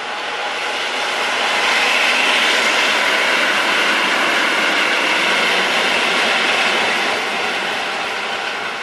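SM42 diesel shunting locomotive running light and passing close by: diesel engine note and wheel and rail noise. It swells as the locomotive approaches, is loudest for several seconds as it goes by, and fades as it moves away.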